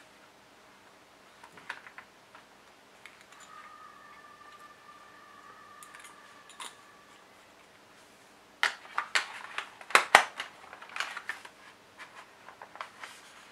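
Clear plastic Jinhao 992 fountain pens being handled: scattered light clicks, then a quick run of sharp plastic clicks and taps a little past the middle, with a few more near the end.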